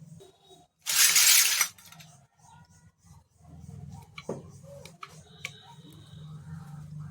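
Pieces of a miniature toy kitchen set and their packaging being handled. A loud rustle of packaging lasting under a second comes about a second in, then light clicks and taps of small toy pieces.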